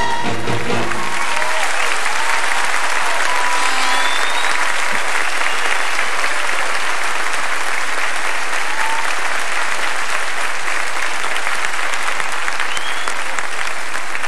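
A large audience applauding steadily and loudly as the dance music cuts off about a second in.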